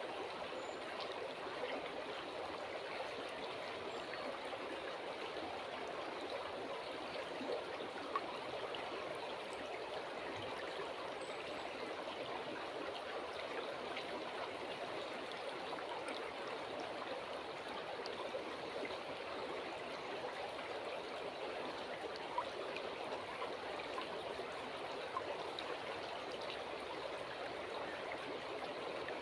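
River water flowing steadily, an even, unbroken rushing babble with a few faint ticks.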